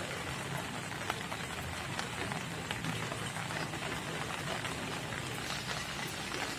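Steady light rain falling, an even patter of many small drops.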